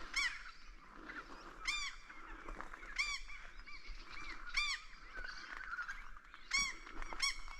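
A bird calling repeatedly: short honking calls that rise and fall in pitch, about six in all, one every second or two, over fainter bird chatter.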